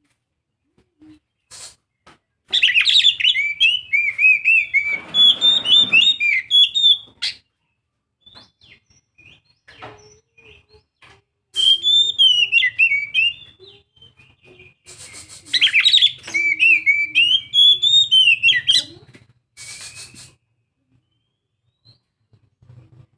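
Young oriental magpie-robin singing: three loud bursts of rapid, varied whistled notes, each a few seconds long, with short scattered notes between them.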